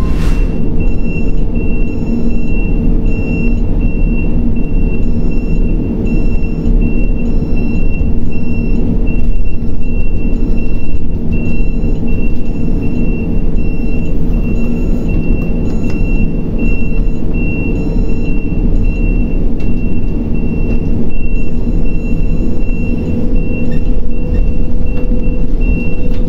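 Heavy machinery of a grab crane unloading a coal barge, running with a loud, steady low rumble and hum. A high-pitched warning beep repeats evenly over it.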